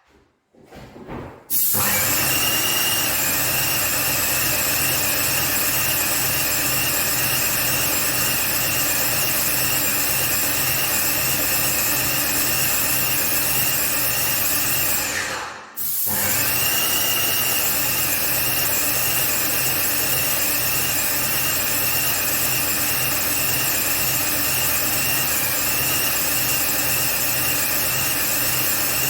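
A power tool motor running steadily with a loud hiss, starting about two seconds in with a brief whine as it comes up to speed. It cuts out abruptly around halfway, then starts again and keeps running.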